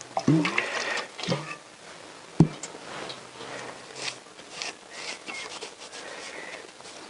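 Rag dabbed with thinners and rubbed over a Honda CBR1000F cylinder head to degrease it before painting, with three sharp knocks in the first two and a half seconds, the last one the loudest.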